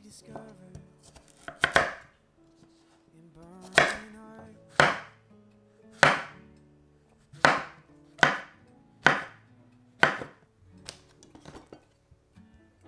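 Chef's knife chopping peeled sweet potato into chunks, then slicing button mushrooms, on a wooden cutting board: about eight sharp, separate knocks of the blade on the board, with a few lighter taps near the end.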